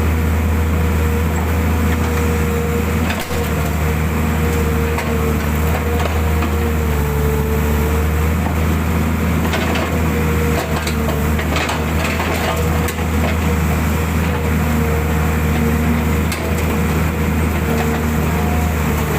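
Mitsubishi hydraulic excavator digging a hole. The diesel engine runs steadily under a wavering hydraulic whine, with scattered knocks and cracks from the bucket working the ground.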